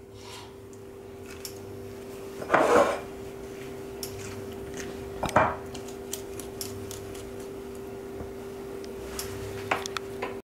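A metal spoon scraping and knocking against a small ceramic ramekin while tomatoes are hollowed out, with two louder knocks and, near the end, a few sharp clicks as the spoon is set down on the counter. A steady low hum runs underneath.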